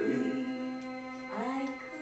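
A song playing on television: a singer holds a long, steady note over the accompaniment, breaking and sliding back up about one and a half seconds in.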